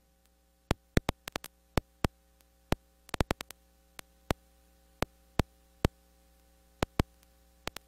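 Irregular sharp clicks, about twenty of them, over a faint steady hum.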